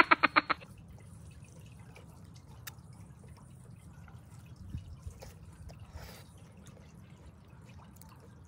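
A rapid, pulsing croak-like sound cuts off sharply about half a second in. After it come faint wet clicks and small ticks of someone chewing juicy plum flesh.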